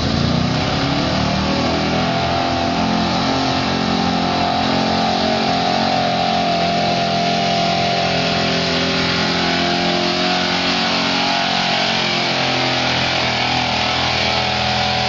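Chevrolet pickup's 454 big-block V8 running at full throttle under heavy load as the truck drags a pulling sled. The revs climb over the first couple of seconds and are then held high and steady.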